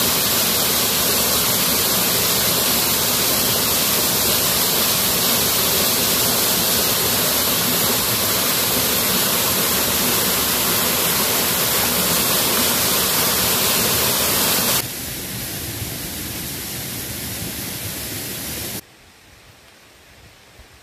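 Steady rushing of river water, a loud, even hiss. It drops suddenly in level about fifteen seconds in, and again to a much quieter hush near the end.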